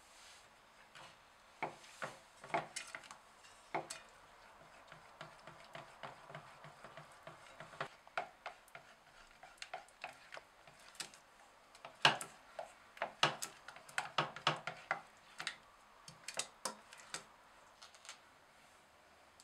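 Silicone spatula stirring thick chocolate ganache in a stainless steel saucepan, with irregular knocks and scrapes against the pan. The strokes come thickest a little past the middle and die away near the end.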